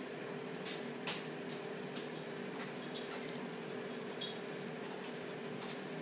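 Cockatoos' beaks chewing a toy and crunching pellets: scattered short, sharp clicks and crunches, the sharpest about a second in and about four seconds in, over a steady low hum.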